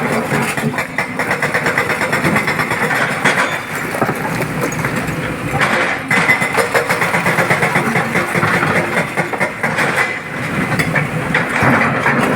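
Heavy diesel machinery running steadily, with a fast, even clatter from the engine.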